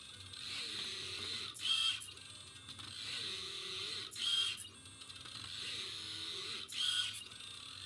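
Pen plotter drawing. Its stepper motors whir, the pitch rising and falling as the belt-driven carriage sweeps each curved stroke. Three times, about every two and a half seconds, there is a short buzzing click burst from the carriage's pen-lift servo.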